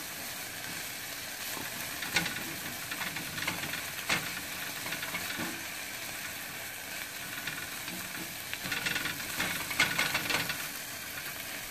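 Diced red onions sizzling in butter in a saucepan, stirred with a silicone spatula that now and then scrapes or taps against the pan.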